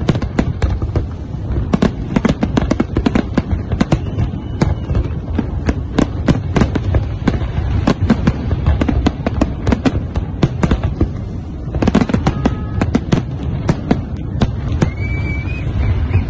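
Aerial fireworks display: a dense, continuous barrage of bangs and crackles, many per second, over a steady low rumble.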